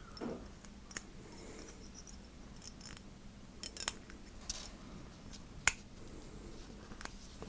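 Thin metal pick scraping and clicking inside the firing pin channel of a Phoenix Arms HP22 pistol slide, working the firing pin's rebound spring out. Faint scratching with a few scattered sharp ticks.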